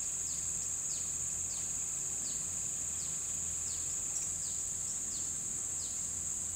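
Steady high-pitched insect drone from a tropical pond edge, with a short falling chirp repeated about every two-thirds of a second and a faint low hum underneath.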